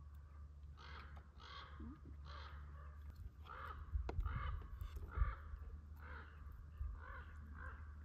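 A crow-like corvid calling in a long series of harsh caws, about two a second. A couple of dull low knocks come near the middle, over a steady low rumble.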